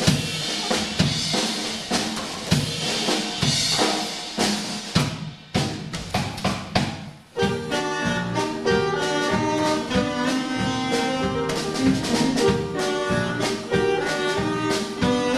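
Jazz band music: a drum kit playing a busy beat, thinning out and dropping away briefly just past the middle, then the full band with horns coming in over a steady beat.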